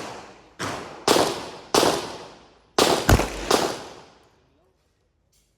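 Six gunshots at an uneven pace, roughly half a second to a second apart, each trailing off in an echo. The fifth, a little past the three-second mark, is heavier and deeper than the rest.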